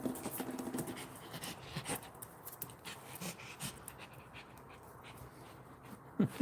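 A dog panting, with scattered light clicks and taps.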